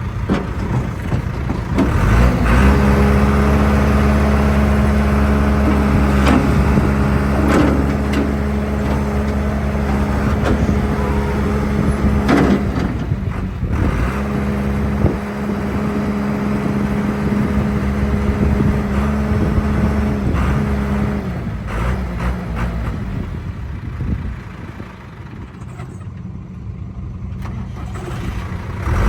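John Deere 310D backhoe loader's diesel engine revving up about two seconds in and holding high revs, dipping briefly once, then falling back to lower revs near the end before picking up again. A few faint knocks sound over the engine.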